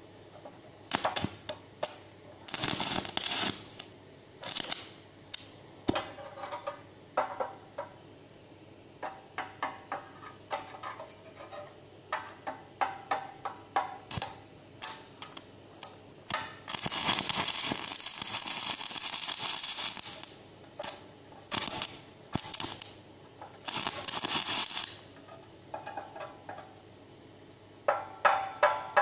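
Stick welding arc on aluminium, crackling and sputtering in short, broken bursts as the arc strikes and goes out, with one longer steady burn of a few seconds past the middle.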